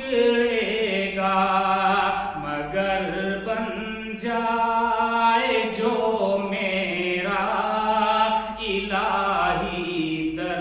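A man singing an Urdu devotional nazm (Islamic poem) unaccompanied, in long held notes that waver and bend in pitch.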